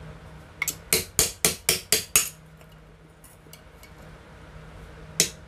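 Hammer blows on an air-cooler motor's metal end cover, driving out the old bush: a quick run of about seven sharp, ringing metal strikes, then one more near the end.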